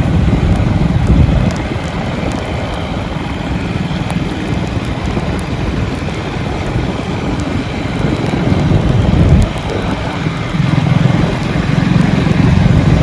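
Wind buffeting the microphone on a moving motorcycle, with engine and road noise underneath. The low rumble eases off a second or two in and swells again in the last few seconds.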